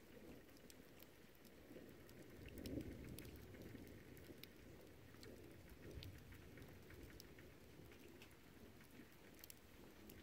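Faint, light rain: scattered single raindrop ticks on a hard surface over a soft low rumble.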